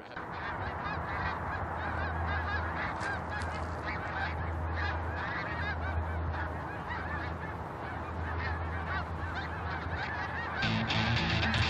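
A flock of geese honking, many overlapping calls at once. Guitar music comes in about a second before the end.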